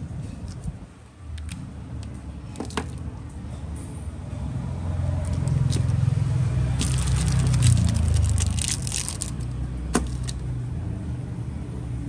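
Zippo lighters being handled: a few sharp metal clicks spread apart, the loudest near the end, and a stretch of scraping in the middle, over a steady low rumble of road traffic.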